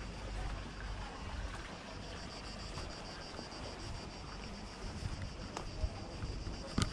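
Wind buffeting the microphone as a low rumble, over a steady high hiss, with a few footstep taps on concrete near the end.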